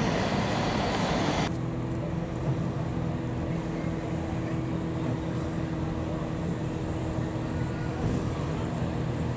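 Vehicle noise: a loud rushing that cuts off abruptly about a second and a half in, leaving a steady low hum with a few held tones.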